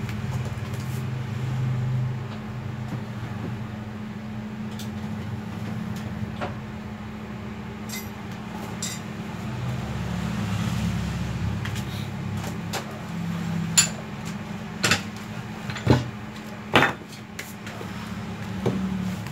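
Steady low hum with scattered small clicks of tools being handled. Between about 13 and 17 seconds come four sharp metal knocks as a heavy electric demolition hammer and its chisel bit are set down on the floor.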